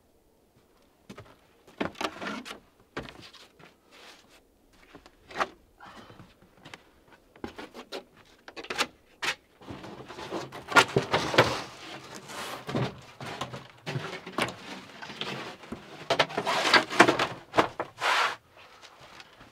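Thin wooden tree-trunk slices being handled: scattered wooden knocks and clatter, then busier stretches of scraping and knocking in the second half.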